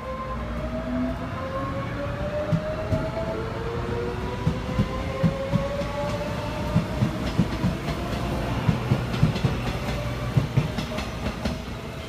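Electric commuter train pulling away and picking up speed, its motors whining steadily higher in pitch. From about two seconds in, the wheels clack over the rail joints in a regular run of knocks.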